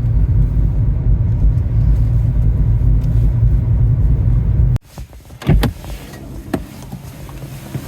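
Steady low rumble of a car driving, heard from inside the cabin. It cuts off abruptly about five seconds in, giving way to much quieter outdoor sound with a couple of short knocks.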